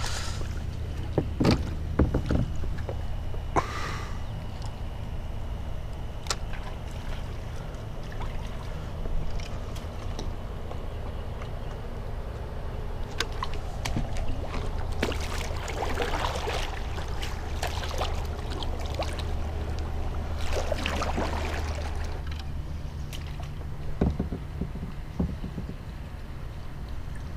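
Kayak being paddled: paddle strokes washing in calm water and a few sharp knocks of the paddle against the hull, over a steady low hum.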